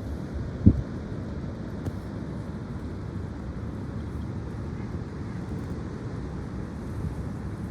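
Strong wind buffeting the microphone, a steady low rumble with a brief thump about a second in.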